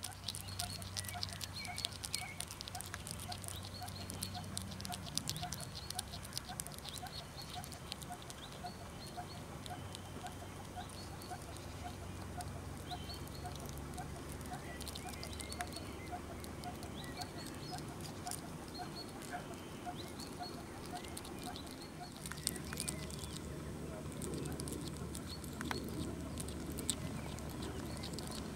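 European hedgehog eating meat, chewing and smacking noisily with many rapid wet clicks and a steady rhythm of short smacks about twice a second.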